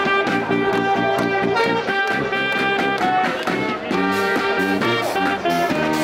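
Background music: held chords and melody notes over a steady beat.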